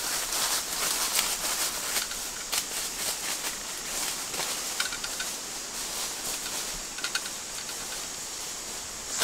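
Footsteps crunching through dry bamboo leaf litter, an irregular crackle and rustle of leaves underfoot.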